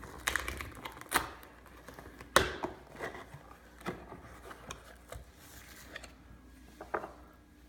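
Handling noise from a borax box and a plastic mixing bowl being set out: a string of sharp knocks and taps, the loudest about two and a half seconds in, with light rustling between them.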